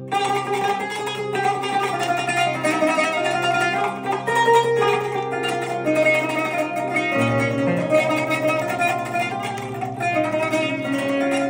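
Kanun, the Turkish plucked zither, played in quick runs of plucked notes over a steady low sustained backing tone.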